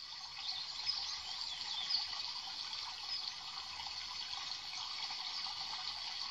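Steady rushing water, like a stream, with faint high bird chirps over it in the first couple of seconds.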